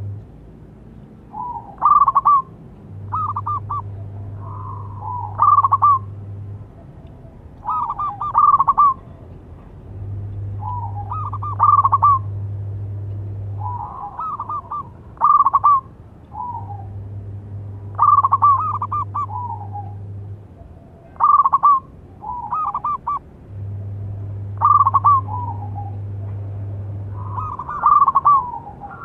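Zebra dove (perkutut) cooing, its song coming in short phrases of quick, rolling notes, one phrase every two to three seconds. Behind it a low hum comes and goes every few seconds.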